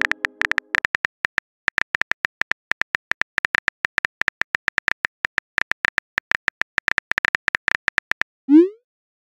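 Simulated iPhone keyboard clicks, a fast run of taps as a text message is typed. Near the end comes a short rising swoosh as the message is sent.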